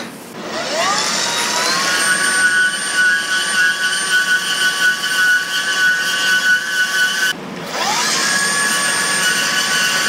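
Angle grinder spinning up to speed with a rising whine and running against a steel bar, its pitch settling and the level wavering as it works the metal. It stops briefly about seven seconds in and spins up again.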